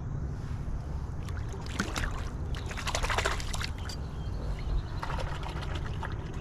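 Water sloshing and trickling against a kayak, with a few short knocks and splashes near the middle, over a steady low rumble.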